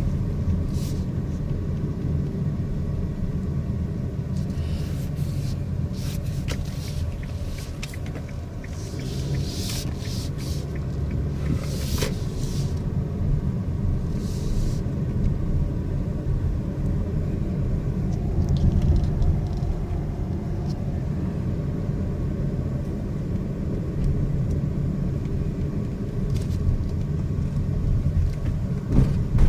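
Car in motion, with a steady low rumble and a faint steady whine that appears when the car turns right. A few short clicks come through in the first half.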